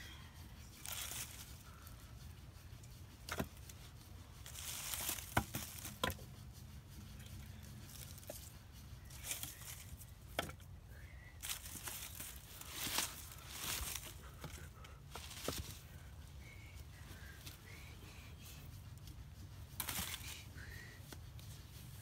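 Split firewood being stacked by hand: dry wood sticks rustling and knocking against each other, with a few sharp knocks among the shuffling of wood and dry leaves.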